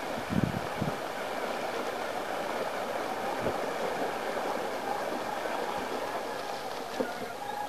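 Water rushing and splashing steadily as a 100 kg radio-controlled four-wheel-drive robot ploughs through shallow river water, its wheels throwing up spray. A couple of low thumps come about half a second in.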